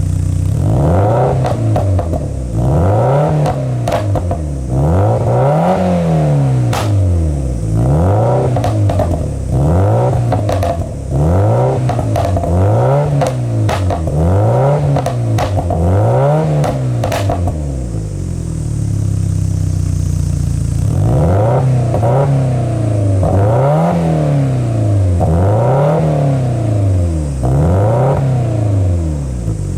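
Subaru WRX STI (VAB) turbocharged 2.0 L flat-four being revved over and over, the revs rising and falling about once every second and a half, with pops and crackles from the exhaust as the revs drop: an ECU pop-and-bang (bubbling) tune. About two-thirds of the way through it settles to idle for a few seconds, then the revving resumes.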